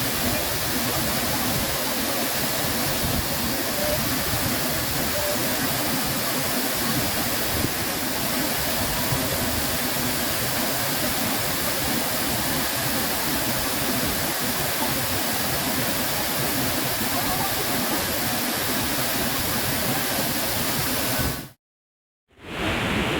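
Waterfall pouring, a steady rushing of water that cuts out for about a second near the end and then comes back.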